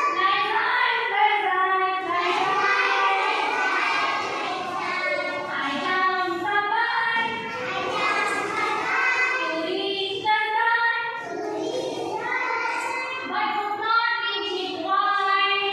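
Group of young children singing an action song together, led by a teacher.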